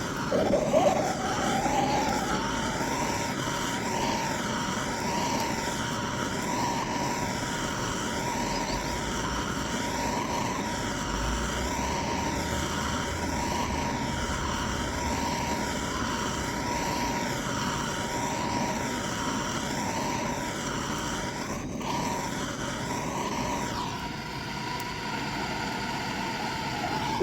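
Steady running noise of a car, a continuous drone with a steady whine, that slowly and regularly swells and fades and changes in tone near the end.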